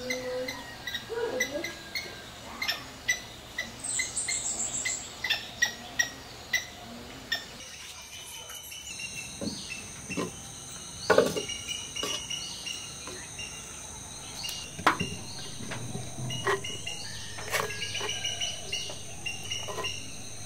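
Birds chirping and a steady high insect buzz that sets in about a third of the way through, with scattered knocks of clay pots being handled, the loudest a little past halfway.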